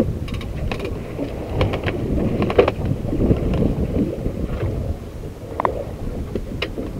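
Choppy water slapping and lapping against a small boat's hull, with wind buffeting the microphone and a few scattered sharp knocks.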